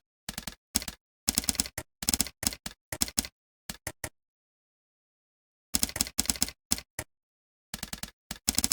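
Typing on a computer keyboard: short bursts of rapid key clicks, with a pause of about a second and a half midway and dead silence between bursts.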